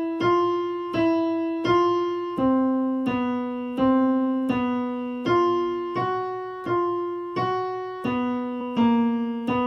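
Digital piano on its piano voice playing a simple beginner melody of a few neighbouring notes, black keys among them, with both hands at once. The notes are struck at a slow, steady pace, about one every 0.7 seconds, each fading before the next.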